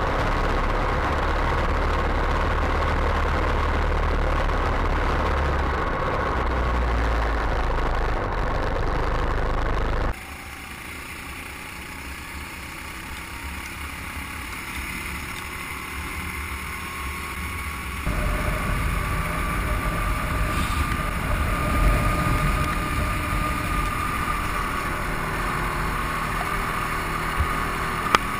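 Go-kart engines running, with a wavering engine whine over steady noise. The sound drops abruptly about a third of the way in and rises again a little past halfway.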